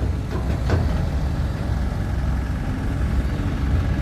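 Dump truck engine running steadily at low revs, with a faint click or two about a second in.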